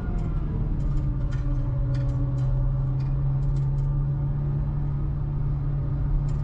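MINI John Cooper Works GP's turbocharged four-cylinder engine running at a steady pitch, with a few faint sharp ticks scattered through the first few seconds.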